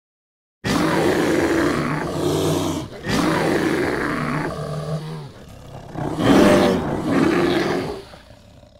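Deep, loud sound effect for a channel intro animation: three long blasts of about two seconds each, the third trailing off near the end.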